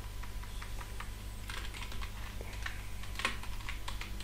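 Keys on a computer keyboard being typed in an irregular run of clicks, busier in the second half, as a password is entered. A steady low hum lies underneath.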